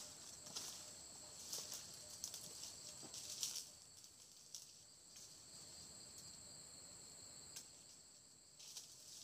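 Insects droning at a steady high pitch, with faint rustling and snapping of footsteps through leafy undergrowth.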